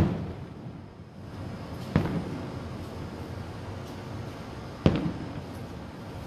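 Aerial firework shells bursting: three sharp booms, one right at the start, one about two seconds in and one nearly five seconds in, each trailing off in a short echoing rumble.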